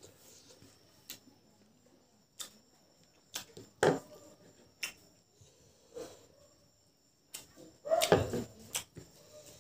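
Close-up mouth sounds of a person eating rice and boiled pork by hand: wet chewing clicks and lip smacks at uneven intervals, loudest about four seconds in and again near the end.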